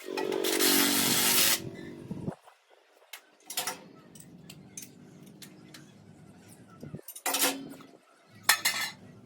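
A power tool running in short bursts: a long first run of about a second and a half that trails off, a lower steady hum in the middle, then two brief runs near the end.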